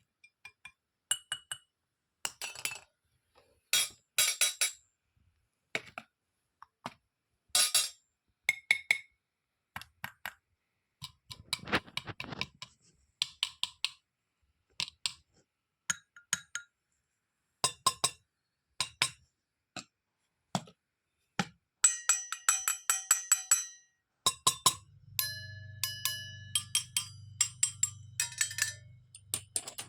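Small toy kitchen pieces clinking and tapping against each other as they are handled, in many separate light strikes, with a run of ringing clinks a little after twenty seconds. Near the end a steady low hum with a held tone comes in under the clinks.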